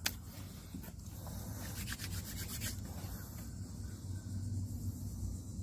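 Cloth rubbing and rustling close to the microphone over a low steady rumble, with a short run of light clicks about two seconds in.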